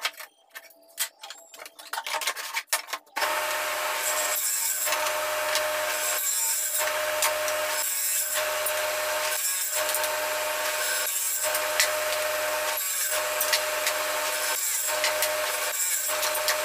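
A table saw starts about three seconds in and runs steadily while a board is pushed through it for a series of short crosscuts into blocks, the sound dipping briefly about every second and a half. Before it starts, light clicks and taps of the wood being handled and marked.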